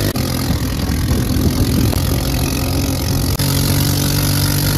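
GY6 go-kart's single-cylinder four-stroke engine running under way, driving through the CVT and its newly replaced centrifugal clutch. The engine note is uneven and shifting at first, then holds steady from about three and a half seconds in. The kart is back to running great.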